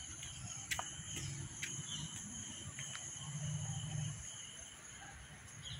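Faint, steady high-pitched insect drone, like crickets. A few soft footfalls sound in the first couple of seconds as someone climbs stone steps, over a low rumble of movement.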